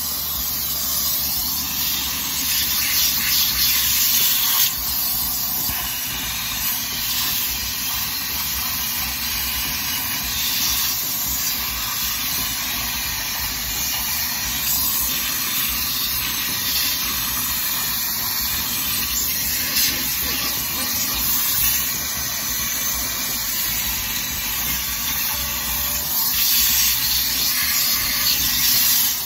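HART 10-gallon wet/dry shop vacuum running steadily, its crevice tool sucking air as it is worked over a leather car seat and into the seat seam. The rushing sound swells a little a few seconds in and again near the end.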